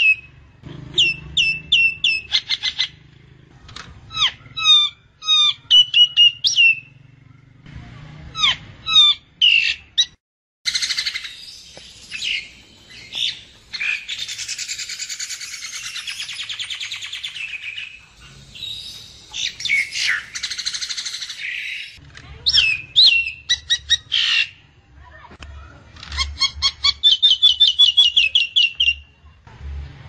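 Common myna calling: a varied string of short whistled and chattering notes, broken by a long, harsh, rasping chatter from about ten seconds in, and a rapid run of repeated notes near the end.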